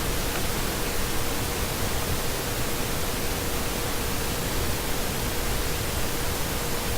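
Steady hiss with no events, with a faint steady hum tone underneath.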